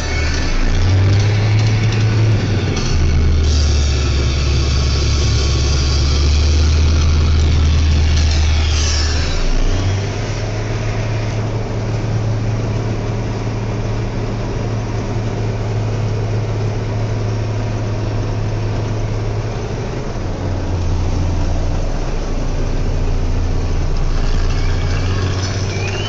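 Caterpillar Challenger MT875 tractor's diesel engine running under load, heard from inside the cab as a steady low drone that steps up and down in pitch a few times. There is extra rattling over the first ten seconds or so.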